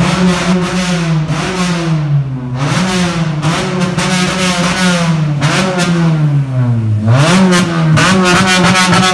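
Car engine revved hard and held high, its pitch sagging and climbing back several times, with one deeper drop and quick climb about seven seconds in. Sharp crackles run through it, thickest near the end, inside a concrete multi-storey car park.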